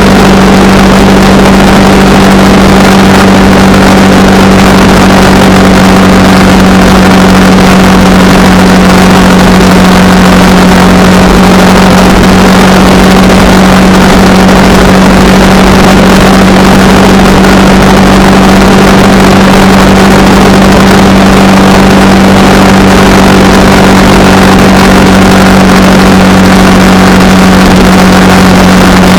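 Honda Rebel 300's single-cylinder engine running at a steady cruising speed, one even engine note that holds its pitch throughout, with a steady rush of wind and road noise over it.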